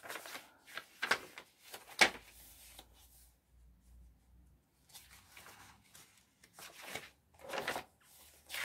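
Paper pages of a handmade junk journal being turned by hand: a series of rustles and swishes of cardstock, tracing paper and book pages, the loudest a sharp flick of a page about two seconds in, with a quieter pause around three to four seconds in.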